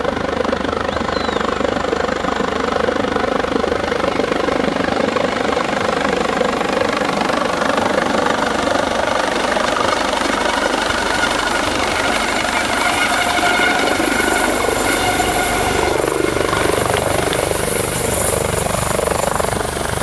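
Medical helicopter's rotor and turbine engine running loudly and steadily as it descends to land. A high turbine whine grows stronger in the last few seconds as it nears touchdown.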